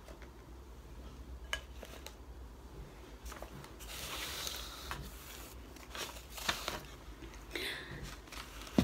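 Hands handling potted plants: leaves rustling, with small knocks and clicks of pots and stems, and one sharp click near the end.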